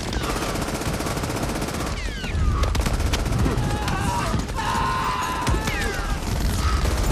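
War-film battle sound: dense, rapid machine-gun and rifle fire that does not let up, over a low rumble that grows heavier a couple of seconds in.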